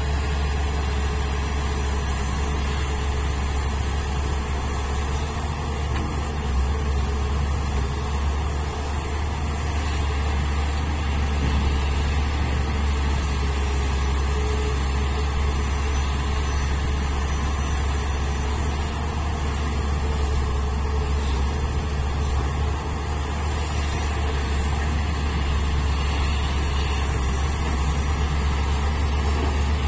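Large diesel engine of a Hitachi Zaxis 470H excavator running steadily with a deep low hum while the machine digs.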